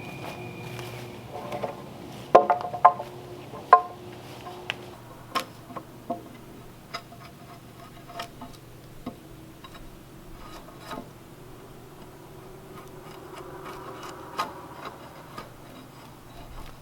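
Irregular knocks and taps: three louder, briefly ringing strikes about two to four seconds in, then lighter scattered taps, over a faint steady hum.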